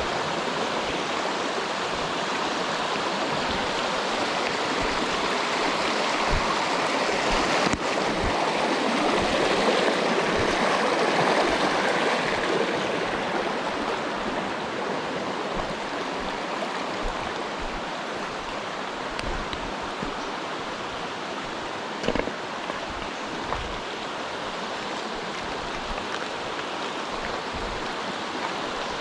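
Mountain stream rushing over rocks, a steady wash of water that grows louder for a few seconds in the middle and then eases off. A couple of sharp knocks, one about eight seconds in and one about twenty-two seconds in.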